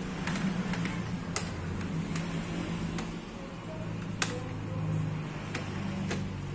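Plastic fish-shipping bag crinkling and crackling as fingers work its knotted neck loose, with scattered sharp crinkles, the sharpest about four seconds in, over a steady low hum.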